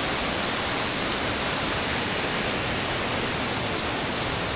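Steady rushing of a mountain stream's water through a rocky gorge, an even hiss that does not change.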